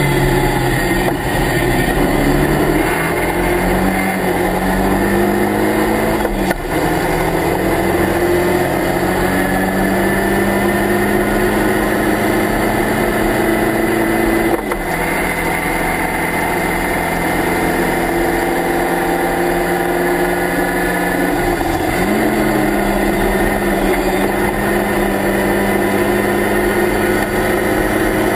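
Locost Lotus Seven–replica race car engine heard from the open cockpit under hard acceleration. The engine note climbs steadily, drops sharply at gear changes about six and a half and fourteen and a half seconds in, and climbs again from about 22 seconds. Wind rush runs underneath.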